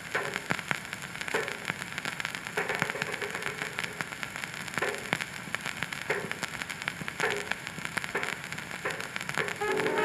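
Surface noise of a 1924 Paramount 78 rpm shellac record: steady crackle and hiss with a sharp click about every second.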